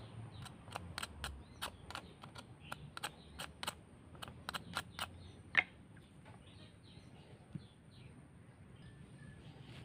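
A quick, irregular run of sharp metallic clicks, about three a second, as steel scissors work at the joint where the sickle's tang has been burned into its handle. The clicks stop a little past the middle, after one louder click, leaving faint outdoor background.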